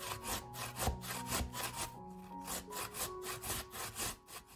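Raw potato grated on a stainless-steel box grater: rhythmic rasping strokes, about three a second, that stop just before the end. Soft background music plays underneath.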